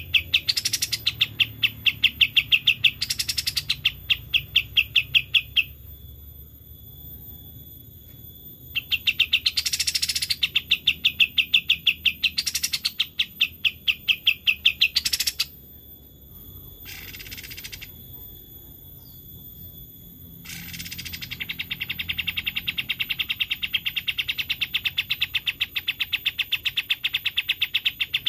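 Kapas tembak bird song: long runs of fast, evenly repeated chirping notes in a rattling trill, broken by a few seconds' pause twice. A short hiss sounds during the second pause.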